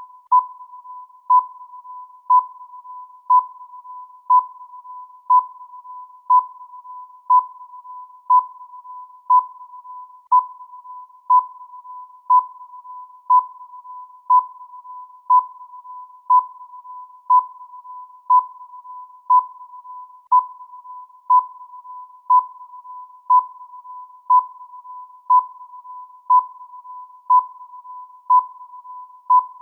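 Electronic countdown-timer beep sounding once a second, a short pitched tone marking each second about thirty times, with a fainter steady tone at the same pitch between the beeps.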